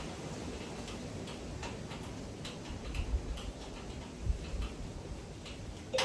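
Faint, irregular light ticks and clicks of small metal parts being handled as a brake line flare nut is being threaded into its fitting by hand, with a sharper click at the very end.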